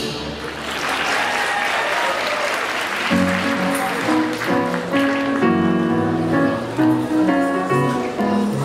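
Audience applauding as a piece of music ends. About three seconds in, the instrumental introduction to the next song starts, a string of clear picked notes in a steady rhythm.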